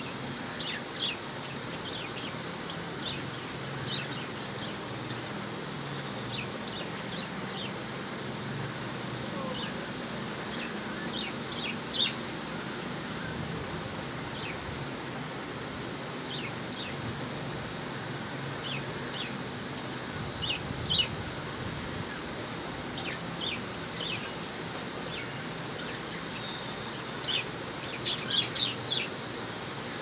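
Pet budgerigars chirping in short, sharp calls now and then, the loudest about twelve seconds in, with a quick run of chirps near the end. There is a steady background hiss underneath.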